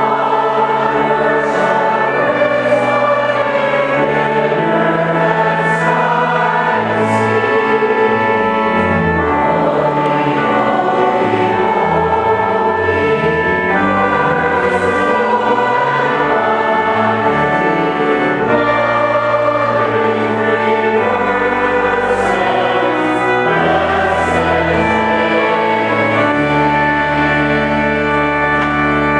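Church choir singing a sacred piece with accompaniment: sustained chords over a moving bass line.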